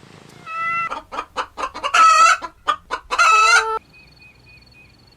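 Chicken clucking in a quick run of short notes, broken by two longer drawn-out squawks, then cutting off abruptly just before four seconds in.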